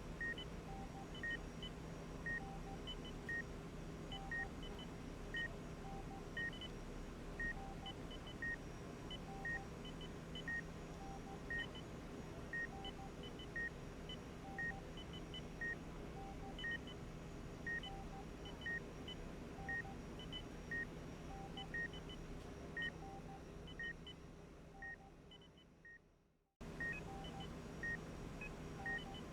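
Hospital medical equipment beeping over a steady low hum: one short high beep repeats about twice a second, with other beeps at higher and lower pitches coming in pairs and threes. Near the end it all fades out, goes silent for a moment and starts again abruptly.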